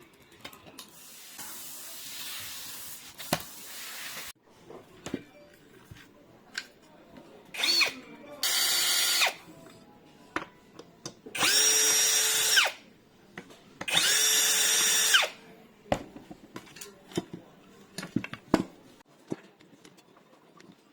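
Handheld electric drill running in short bursts, the motor spinning up quickly and holding a steady whine for one to one and a half seconds each time, while holes are drilled in a door to fit a lock. Before the bursts there are a few seconds of rushing noise, and clicks and knocks of handling come between them.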